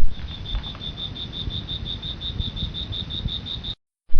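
Crickets chirping steadily, a high pulsing note at about six chirps a second over a low rumble. The sound starts abruptly, cuts out briefly near the end, then starts again.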